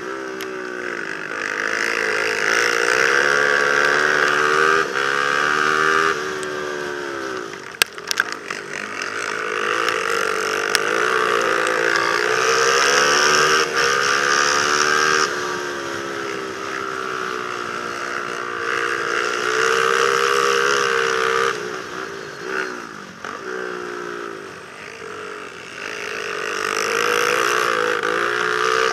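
Racing quad (ATV) engine revving hard on the straights and dropping off into the corners, its pitch rising and falling over and over, with wind rushing past. A few sharp knocks about eight seconds in.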